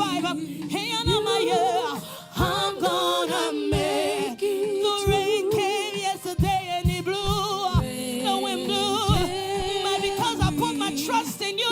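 Gospel choir singing a slow worship song, voices held on long notes with vibrato, over a band with repeated drum hits.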